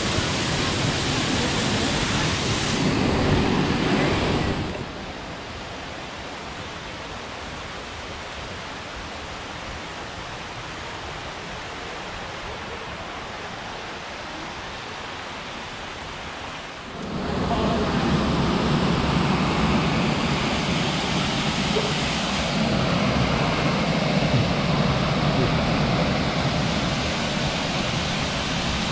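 Steady rush of water from a small waterfall spilling into a stream. The sound is quieter and softer from about five seconds in, then loud again from about seventeen seconds in.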